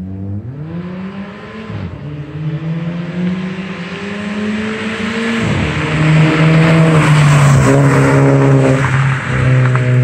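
2017 Volkswagen Jetta 1.8 TSI with its muffler deleted, accelerating hard toward and past. The engine's pitch climbs, drops back at each upshift a few times, and is loudest from about six seconds in as the car goes by.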